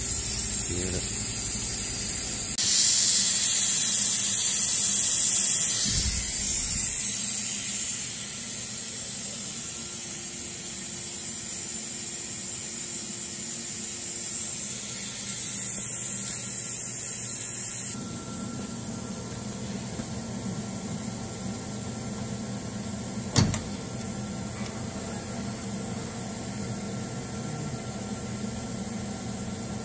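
Compressed air hissing from the dust blow-off at the HSD spindle of a Laguna CNC router, the air jet that blows chips and dust away from the cutter. It swells and fades, then drops to a fainter hiss about two-thirds of the way through, and one short click comes a few seconds after that.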